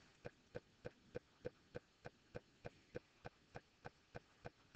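Faint, evenly spaced ticking, about three ticks a second, in near silence.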